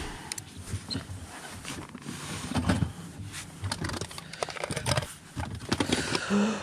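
Scattered clicks and knocks of a bass boat's carpeted deck hatch being lifted open and tackle being handled in the storage compartment beneath.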